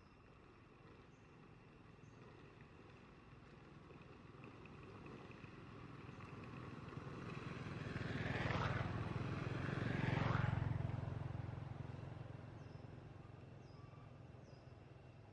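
A motor vehicle passing by: its engine grows steadily louder, is loudest about eight to ten seconds in, then fades away.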